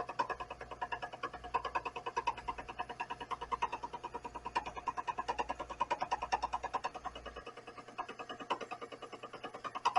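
Vevor 7x14 mini lathe turning a welded bundle of rebar: a rhythmic clatter repeating about seven times a second as the cutting tool meets the gaps and holes in the uneven welded surface. A low hum underneath drops out for a couple of seconds near the end.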